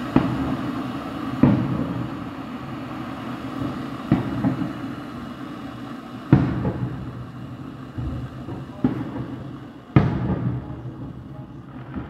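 Firework shells bursting in the sky: about eight booms one to two and a half seconds apart, each trailing off in a rumbling echo.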